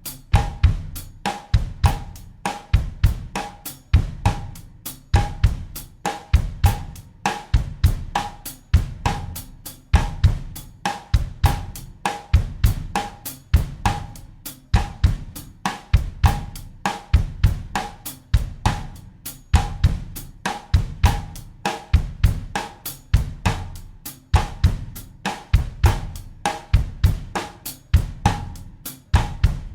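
Acoustic drum kit playing a steady bossa nova groove in 4/4 at 100 bpm: bass drum, snare and hi-hat/cymbal strokes in an even, repeating pattern.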